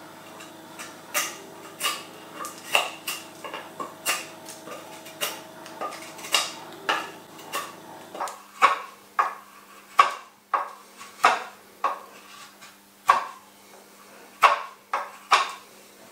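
Nessmuk knife shaving and trimming a willow board flat: a quick, sharp scraping crack with each cut, about one to two cuts a second.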